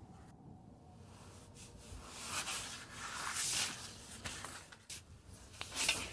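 Scraping and rustling of a sign and clothing being moved over a concrete floor, as a series of separate scuffs. The loudest comes near the end, as the sign is lifted.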